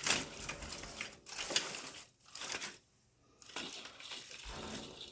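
Rustling and crinkling of decorative Christmas greenery as a piece is pushed upright into the back of a hearth arrangement, in uneven bursts with a short pause about three seconds in.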